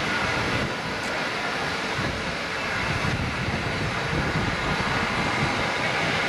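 Steam locomotive moving slowly toward the platform, a steady hiss and rumble with no distinct exhaust beat.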